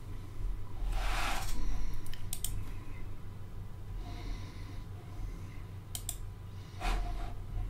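A few sharp clicks of someone working a computer, in pairs about two and a half and six seconds in, with a loud breath out about a second in and a shorter one near the end, over a low steady hum.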